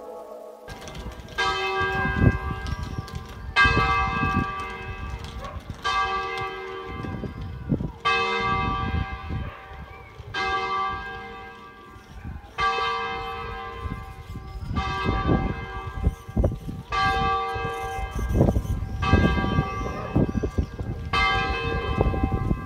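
A single church bell tolling slowly, the same note struck about every two seconds, roughly ten times, each strike ringing on and fading before the next. A low uneven rumble runs underneath.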